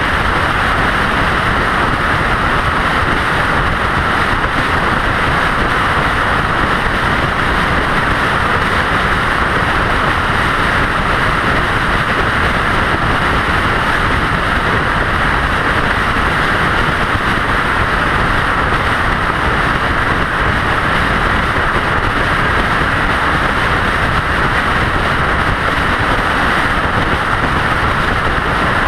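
Steady, even rush of road and wind noise from a vehicle cruising at highway speed, with no distinct engine note or separate events.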